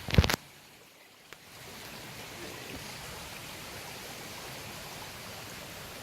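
Stream flowing steadily with a constant rush of water. A short loud bump comes right at the start, and the water sound drops low for about a second before returning.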